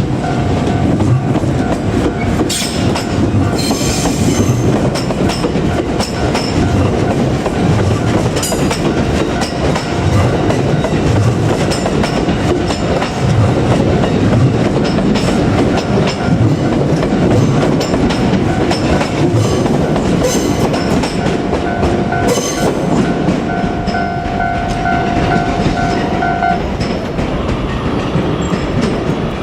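JR Kyushu 787-series train running past close by: a continuous rumble of wheels on rail with clickety-clack over the joints and a few brief high squeals. Near the end a steady tone is held for about four seconds.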